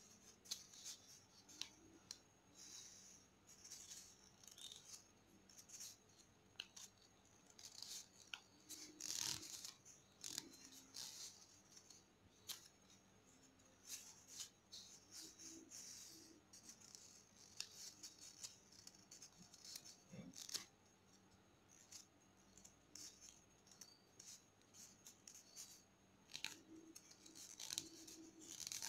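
Origami paper being folded and creased by hand: faint, irregular crisp rustles and crinkles of the stiff paper sheet, with a few sharper crackles as folds are pressed.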